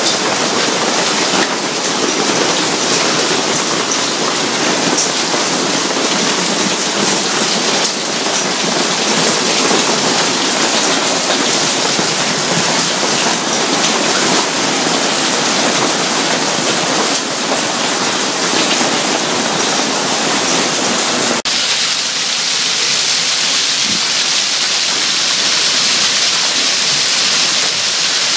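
Heavy rain pouring down in a dense, steady hiss. About three-quarters of the way through the sound changes abruptly, becoming thinner and hissier.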